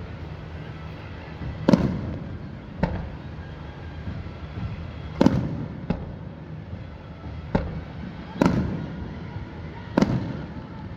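Fireworks display: aerial shells bursting in about seven loud bangs at irregular intervals, each followed by a rolling rumble.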